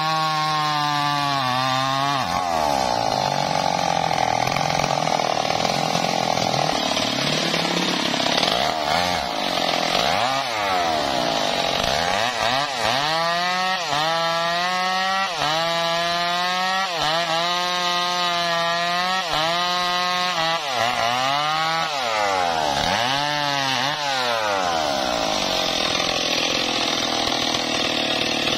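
Stihl MS 382 two-stroke chainsaw cutting through a felled log at high revs. Through the middle stretch the engine speed dips and climbs back about once a second, then it holds steady in the cut again near the end.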